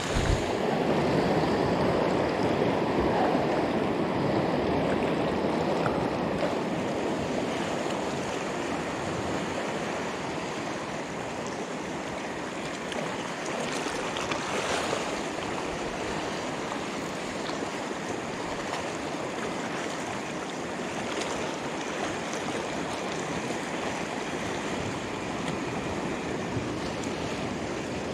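Sea surf washing over the shoreline rocks, a steady rushing wash that is loudest in the first few seconds and swells again about halfway through.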